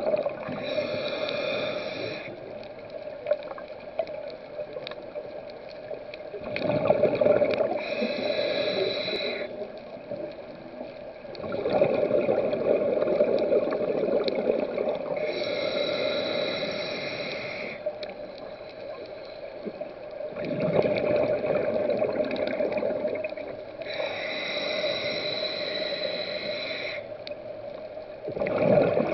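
A scuba diver breathing through a regulator underwater, in a slow cycle of about four breaths: each a hissing inhale followed by a longer bubbling rush of exhaled air. A steady hum runs underneath.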